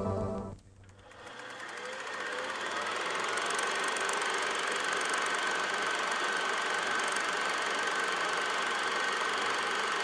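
Film projector running: a rapid, steady mechanical clatter with a faint high whine. It fades in after music cuts off about half a second in, then holds steady.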